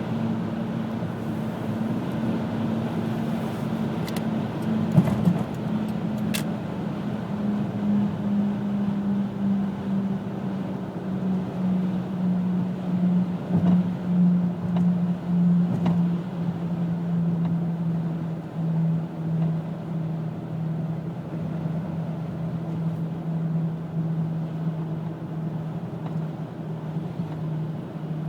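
2000 Pontiac Grand Am GT humming while driving, a steady drone over road noise that slowly drops in pitch and wavers in loudness later on. The hum rises with road speed and persists despite two sets of new hub bearings, a new driver-side CV joint and new brakes; its cause is unknown to the owner.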